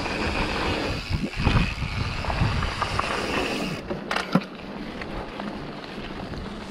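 Santa Cruz Bronson mountain bike riding down a dirt and gravel trail: tyres rolling over the loose surface, wind rumbling on the microphone, and the bike rattling over bumps. A few sharp knocks come about four seconds in, and then it goes quieter.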